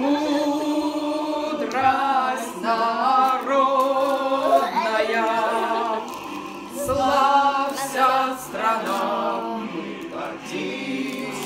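Several voices singing a song together, with held notes.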